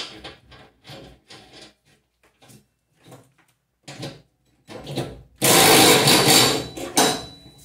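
Small metal parts clicking and rattling as they are handled, then a DeWalt cordless drill spinning a socket on a mower-deck spindle nut, running loudly for about two seconds to tighten it.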